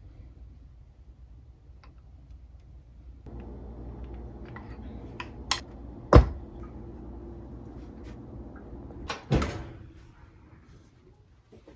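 Kitchen handling sounds: a few sharp knocks of cookware on the counter, the loudest about six seconds in, as the metal cake pan is handled, then a knock with a short ring-out just after nine seconds as the oven door is opened. A faint steady hum runs under the middle of it.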